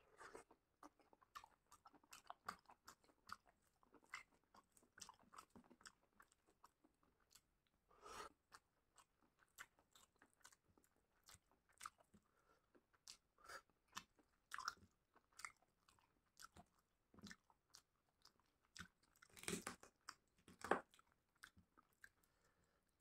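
Close-miked chewing and wet mouth sounds of a person eating chicken and rice: irregular soft smacks and clicks, with louder bursts about eight seconds in and again near twenty seconds.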